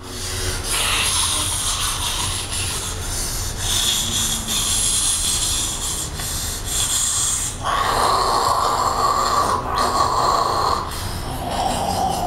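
A man's harsh, rasping breaths and snorts, the sound of a tattooed man in a sak yant trance, growing louder and coarser about two-thirds of the way in.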